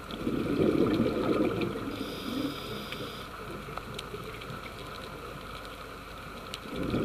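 Underwater recording of a scuba diver's exhaled breath: a burst of bubbles gurgling through the regulator in the first second or so, and another starting near the end. Between the bursts there is a steady underwater hiss, a higher hiss about two seconds in, and scattered faint clicks.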